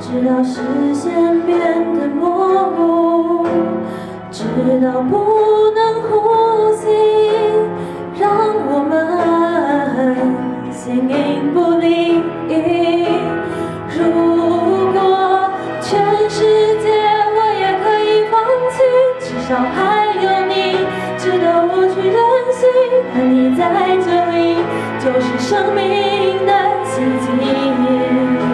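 A woman singing a slow Mandarin pop ballad into a microphone over a karaoke backing track, her voice carrying held notes with vibrato.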